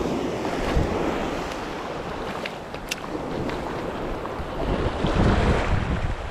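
Sea waves washing on the shore, with wind buffeting the microphone in heavier low gusts toward the end. A few faint ticks come through around the middle.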